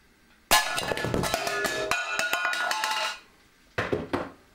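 A sharp crack as the Webley Nemesis fires and its .177 pellet strikes a baked bean tin, then the tin clatters and rings as it is knocked off the workbench and tumbles for about three seconds, with two more knocks near the end. The pellet knocks the tin over without penetrating it.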